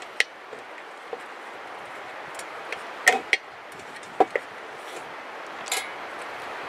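A few sharp clicks and knocks from Weber Smokey Joe grill parts and hardware being handled during assembly: one just after the start, a pair about three seconds in, another pair about four seconds in, and a short scrape near the end, over a steady hiss.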